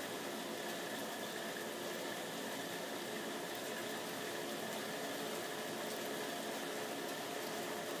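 Heavy rain pouring down steadily, a dense even hiss of thick raindrops.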